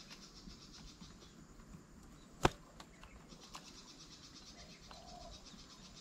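A steady, rapidly pulsing insect chorus in the background, with a single sharp knock about two and a half seconds in and a few faint ticks after it.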